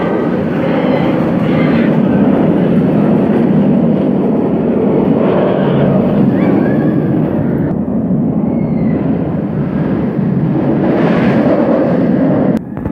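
Nemesis, a Bolliger & Mabillard inverted steel roller coaster, its train running along the track close by and overhead: a loud continuous roar of the train on the steel rails, dropping off sharply near the end.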